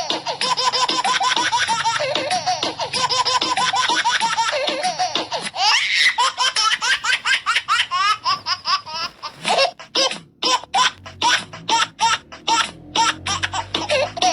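A baby laughing heartily, a long run of chuckles that breaks from about halfway into quick, separate bursts of giggling, cut off abruptly at the end.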